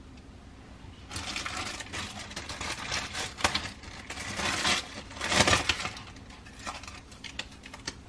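Plastic packaging crinkling and tearing in irregular crackly bursts as a new spatula is unwrapped, starting about a second in and fading near the end.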